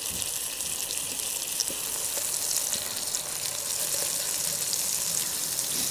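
Ribeye steak frying in butter and a little oil in a frying pan: a steady sizzle with a few faint crackles.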